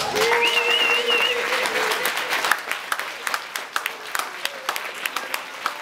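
Audience applauding. The clapping is dense at first and thins out over the last few seconds.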